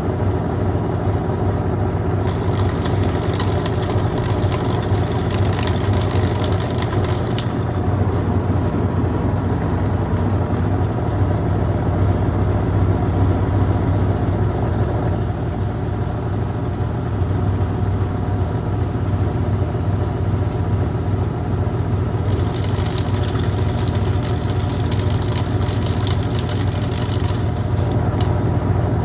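Brastemp Clean washing machine running with a steady motor hum. A high, crackly hiss rises over the hum about two seconds in and again about twenty-two seconds in, lasting about five seconds each time.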